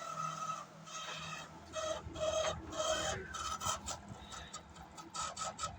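LG microwave oven's cooling-fan motor running with an irregular squeal and rasp over a low hum. The noise comes from a jammed, dry bush (sleeve bearing) in the fan motor.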